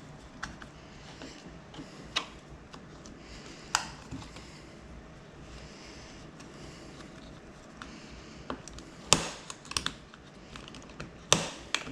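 Scattered sharp clicks and taps of small hand tools against a Surface Pro 3 tablet's case, a few seconds apart at first, then several close together in the last few seconds.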